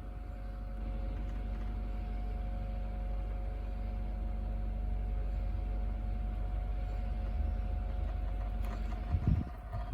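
Small Pedrain USB fan running steadily: a motor hum with two steady tones over a low rumble of air. A single knock about nine seconds in.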